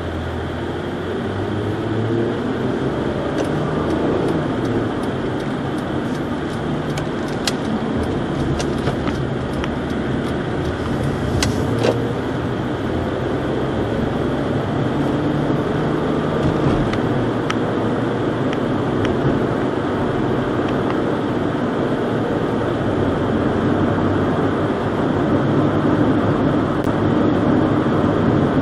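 Cabin sound of a 2008 Honda Odyssey minivan driving, picked up by the dashcam's microphone: steady engine and road noise, with a few light clicks scattered through it.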